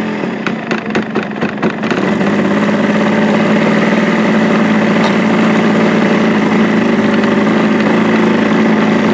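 Engine of a giant-scale radio-controlled de Havilland Tiger Moth model in flight. A few sharp pops in the first two seconds, then a steady engine note that grows louder as the plane comes in and holds.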